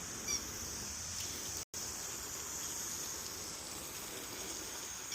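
Steady outdoor background hiss with a constant high insect-like drone, and one brief high chirp about a third of a second in.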